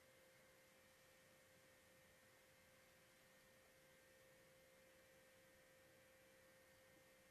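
Near silence: a faint, steady pure tone holds without fading over a low hiss.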